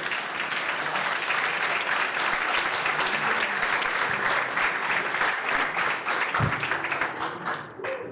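Audience applauding, many people clapping together, stopping suddenly near the end.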